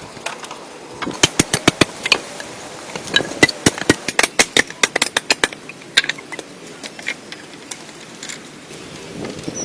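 Rapid series of sharp knocks on wood, about five a second, in two runs with a short pause between them, then a few single knocks.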